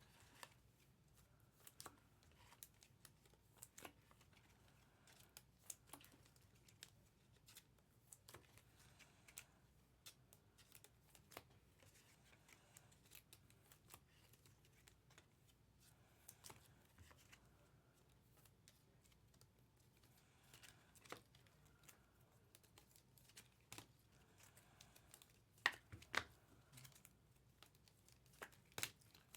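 Near silence with faint, scattered clicks and rustles of trading-card packs being torn open and cards handled, a few slightly louder ticks near the end.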